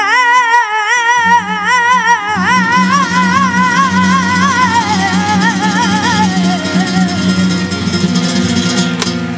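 A boy sings a long flamenco fandango line into a microphone, with heavy vibrato. His final held note slides downward and fades out about two-thirds of the way through, over flamenco guitar accompaniment.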